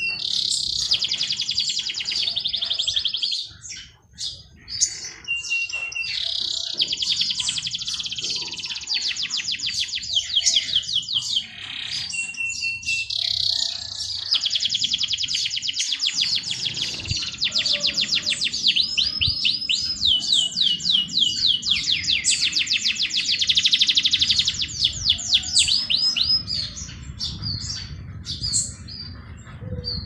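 A songbird singing long, very fast, high trills in phrases of several seconds, with some phrases opened by a short steady whistle and brief pauses between them.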